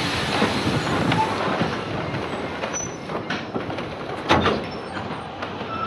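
Narrow-gauge heritage passenger carriage rolling on the track, heard from on board: a steady rumble of wheels and rails with scattered clicks and one sharp clank about four seconds in. The noise eases toward the end.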